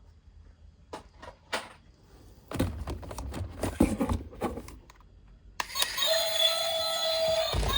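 A few clicks and a stretch of plastic clattering as a toy vehicle is handled, then about five and a half seconds in the toy's battery-powered sound unit switches on: a loud, steady electronic tone with many overtones.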